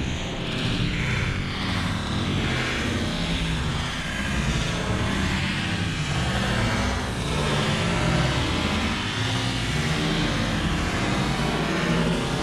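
Dozens of bijili firecrackers bursting in rapid succession, their small bangs packed so close together that they run into one dense, unbroken crackle at a steady level.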